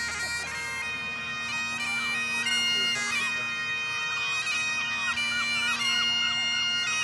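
Great Highland bagpipes playing a march tune: a steady drone holds underneath while the chanter's melody moves from note to note with quick grace-note flourishes between them.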